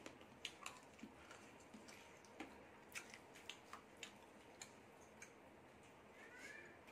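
Quiet eating sounds from rice and dal mixed and eaten by hand: soft, irregular wet clicks from chewing and from fingers working the rice on a plate, about a dozen over several seconds.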